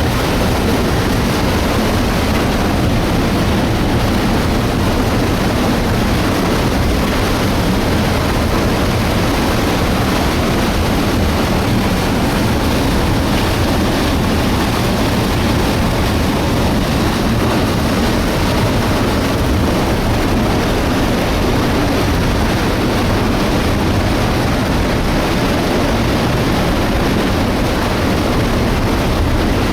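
Debris flow surging down a torrent channel: a loud, steady rushing noise of mud, water and rocks, strongest in the low range and unchanging throughout.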